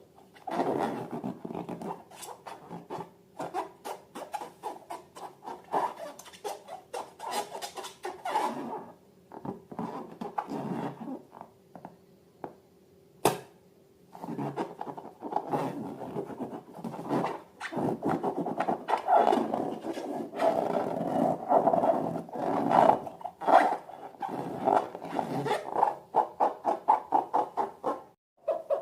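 Slime being squeezed and worked by hand: rapid, irregular squelching and sticky clicking. It pauses for a couple of seconds about halfway through, broken by one sharp click, then picks up again, denser toward the end.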